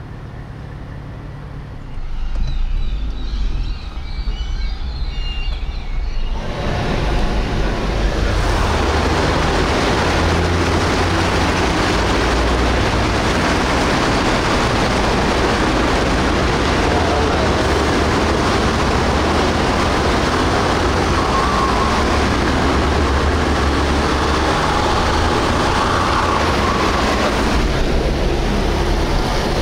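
A low vehicle rumble for the first few seconds, then from about six seconds in a loud, steady rush of water as a Toyota Corolla sedan drives through a flooded road, its tyres throwing up spray. The rush eases slightly near the end.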